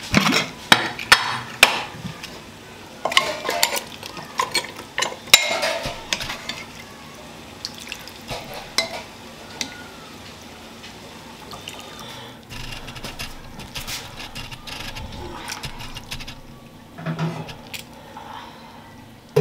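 Kitchen handling sounds: utensils clinking and knocking against glass bowls and metal pots, with some stirring and liquid sounds. Sharp clinks come thick in the first several seconds, then give way to softer, steadier handling.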